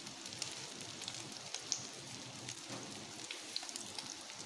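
Shami kebabs, browned and done, shallow-frying in oil in a pan: a low, even sizzle dotted with small pops and crackles.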